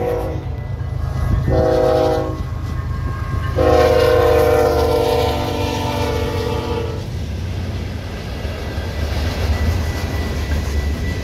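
Locomotive air horn, a Nathan K5HL on a BNSF ES44C4, sounding the close of a grade-crossing signal: a long blast cutting off just after the start, a short blast about a second and a half in, and a long, loud blast from about three and a half to seven seconds. Under it, the passing freight train rumbles steadily with its wheels clacking over the rail joints.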